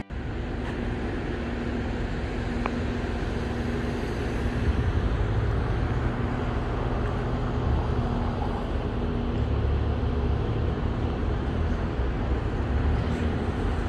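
Outdoor town-square ambience: a steady low rumble with a faint steady hum, of the kind distant road traffic makes.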